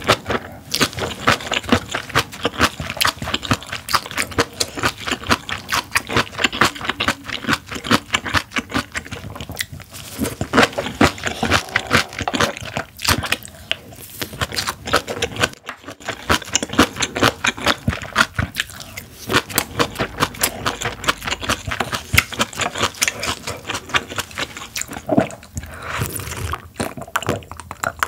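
Close-miked chewing of crunchy kimchi and rice: a dense run of wet crunches and mouth sounds, pausing briefly about ten and sixteen seconds in.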